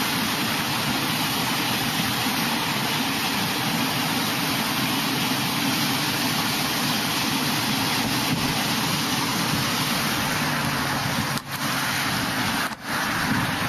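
Steady roar of a rushing flash-flood torrent, a dense, even noise broken by two brief dropouts near the end.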